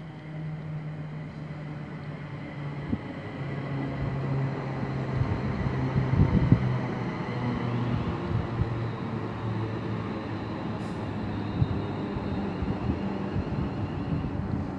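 Passenger multiple-unit train pulling in along the far platform track. It gets louder toward the middle, and its low drive note drops in pitch as it slows.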